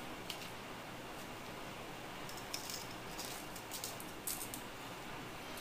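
Faint, scattered light clicks and ticks of small parts being handled: the latch actuator's two gray wires being disconnected and swapped to correct reversed wiring.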